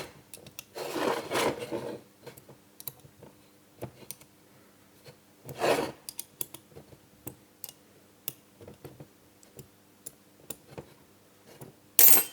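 Hand work on a motorcycle clutch basket at a bench: scattered small metal clicks and taps, with short scraping, rubbing sounds about a second in and again near six seconds, and a sharp clatter near the end.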